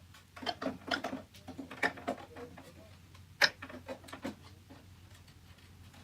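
Irregular light clicks and taps of hands and tools working at the back cover of a Nespresso Gemini coffee machine while it is prised off, with one sharper click about three and a half seconds in, then a faint steady hum.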